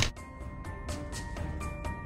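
A sharp click, then background music with a quick steady beat of about four strokes a second under held notes.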